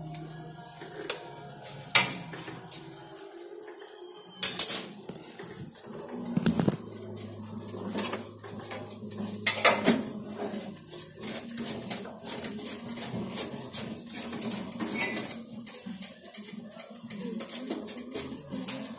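Metal cutlery and dishes clinking at a kitchen sink: a few sharp clanks, then a run of quick, lighter clicks in the second half.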